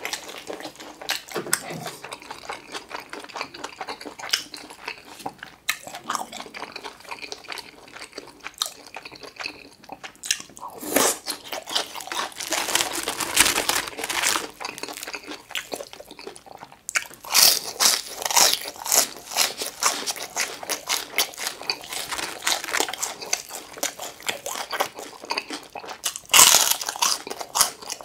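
Close-miked eating sounds: moist chewing of stir-fried noodles and mussels, and crackly crunching bites of crispy glutinous-rice-battered sweet-and-sour pork (chapssal tangsuyuk), loudest in several spells of crunching.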